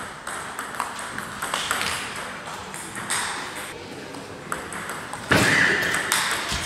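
Table tennis rally: a plastic ball clicking in quick succession off rubber-faced bats and the table top. A louder, longer sound cuts in about five seconds in.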